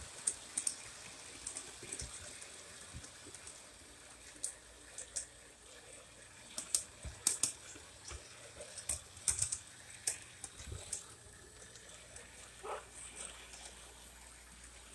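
O-gauge model train rolling along 027 tubular track, its wheels clicking irregularly over the rail joints, over a faint steady hiss.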